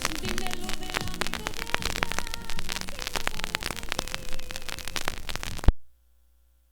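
Vinyl record surface noise, a dense crackle with frequent pops, over the faint fading tail of a ballad's instrumental. About 5.7 seconds in, it ends suddenly on a loud click, leaving only a faint hum.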